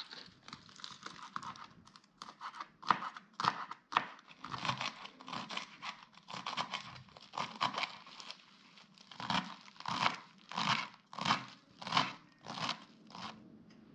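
Kitchen knife chopping fresh cilantro on a cutting board, crisp crunching cuts through the leaves and stems. The cuts come quick and uneven at first, then settle into slower, evenly spaced strokes in the second half.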